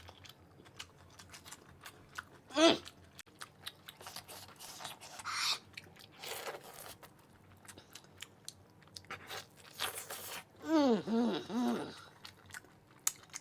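Close-up eating sounds of a person biting and chewing mutton leg pieces: many wet mouth clicks and smacks. A short vocal hum comes about two and a half seconds in, and a longer wavering one near the end.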